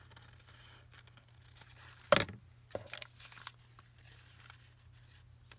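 Paper and a paper napkin being handled: a sharp crackle about two seconds in, a smaller one just after, then light rustling.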